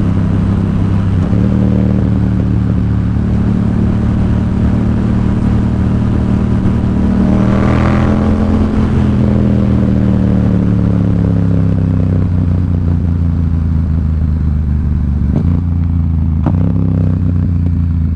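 Yamaha XSR700's parallel-twin engine cruising steadily through a Two Brothers SR1 stainless slip-on exhaust run without its power-tip insert, a deep, even exhaust note. It swells briefly with a rising then falling whine about halfway through, and two short knocks come near the end.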